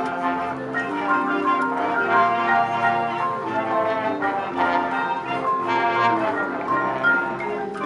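Brass-led band music: several wind instruments playing chords together, moving from note to note.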